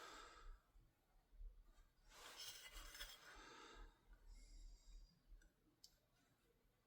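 Near silence: a faint breath-like exhale and light handling of small parts, with one tiny click near the end.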